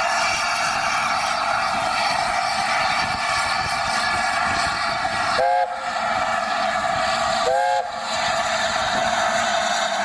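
Steam locomotive whistle giving two short blasts about two seconds apart, over a steady loud hiss of escaping steam.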